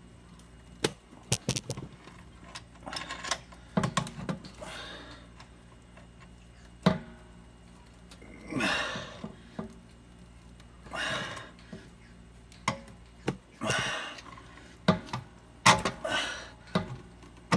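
Knocks, clinks and short scraping sounds of plumbing pipe fittings and tools being handled and turned.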